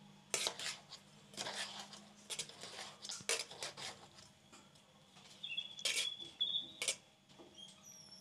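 Metal spoon scraping and knocking against the side of an aluminium pot as cooked biryani rice is turned over and mixed, in a run of irregular strokes with a quiet stretch in the middle and a few more strokes near the end.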